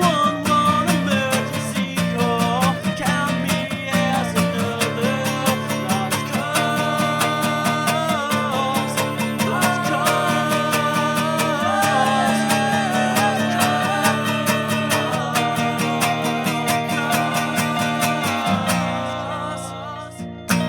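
A band's song playing: guitars over a steady drum beat, with a melody line on top. Near the end the beat stops and the band rings out on a last chord.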